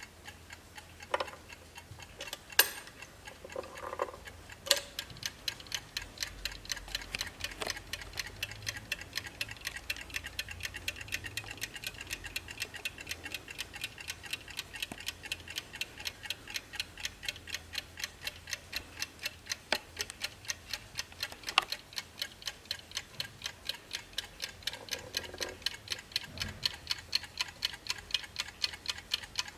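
Mechanical ticking of a 1950s Wehrle wall clock with built-in kitchen timer: a rapid, even run of ticks, with a few louder clicks in the first few seconds and again about twenty seconds in.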